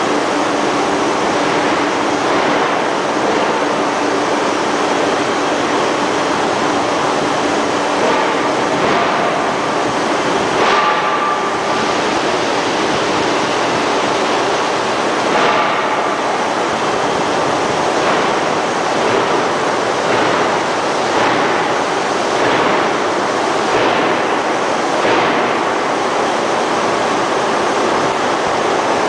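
Ring rolling mill rolling a red-hot steel ring: a loud, steady rushing machine noise. Faint short rasps recur every few seconds in the second half.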